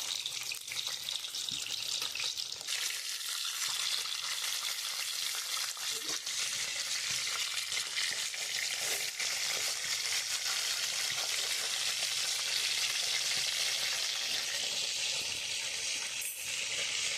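Masala capsicum (shimla mirch) sizzling as it fries in oil in a pan, with stirring. The sizzle gets louder about three seconds in and then holds steady.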